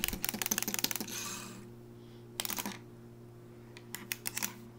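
Clockwork mechanism of a wind-up toy bunny clicking rapidly as it runs, stopping about a second in, followed by two short bursts of clicks later on.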